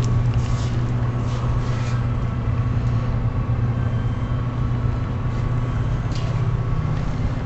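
Steady low mechanical hum, with a few brief soft rustles over it.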